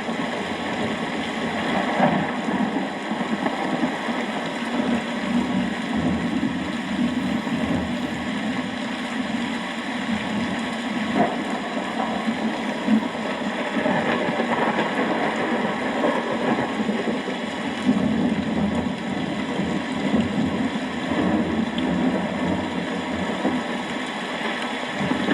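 Steady rain with a continuous low rumble of a thunderstorm, and no single distinct thunderclap.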